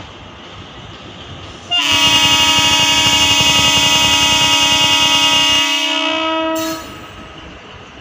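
Horn of a departing Indian Railways DEMU train, sounding one long blast of about five seconds that starts about two seconds in. A steady low train rumble runs underneath.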